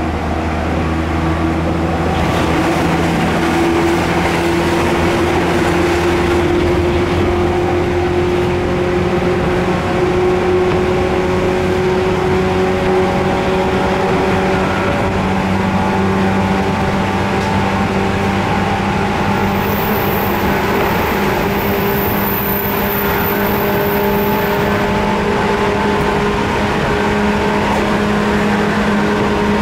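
JR 185 series electric train's MT54 traction motors growling under the car floor while running, their whine rising slowly in pitch as the train gathers speed, over steady rail and wheel rumble.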